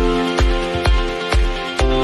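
Electronic dance music with a steady kick-drum beat, about two beats a second, under sustained synth tones.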